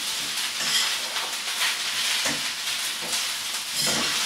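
Fried rice sizzling in a hot wok over high heat, a steady hiss, with a metal spatula scraping and stirring through it about once a second.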